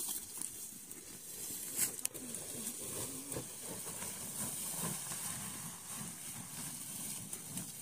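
Dry corn stalks and husks rustling and crackling, with a few sharp crackles about two seconds in, over a steady high hiss.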